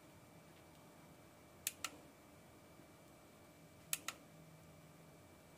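Mode button on a multicolour LED garland's controller pressed twice, about two seconds apart, each press a quick double click, over faint room tone.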